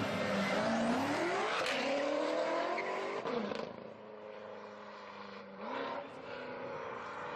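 Supercar engine being revved: the pitch climbs and falls back over the first few seconds, settles to a steady idle, gives one short blip a little before six seconds in, then idles again.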